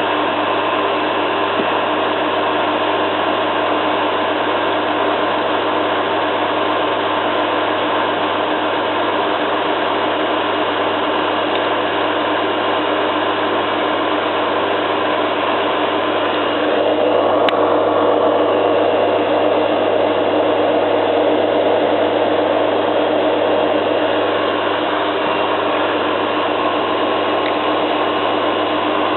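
Zanussi FLA1002W washing machine on its final spin: motor and drum running steadily with a whine, the sound thickening and growing a little louder just past halfway. The drum is in near perfect balance, with only a small vibration.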